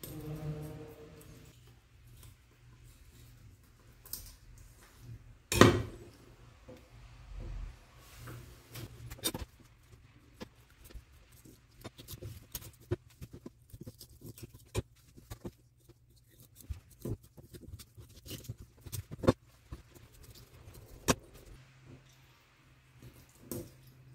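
Chef's knife clicking, tapping and scraping on a plastic cutting board as a small fish is filleted: many short irregular clicks, with one loud knock about five and a half seconds in.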